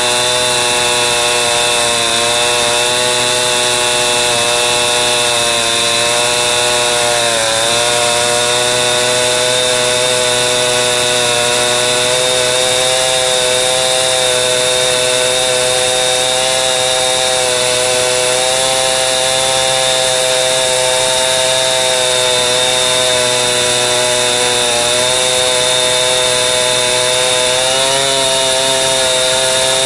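Chainsaw running at high speed under load, ripping lengthwise through birch. Its pitch sags briefly about seven seconds in and again near the end as the chain loads up in the cut.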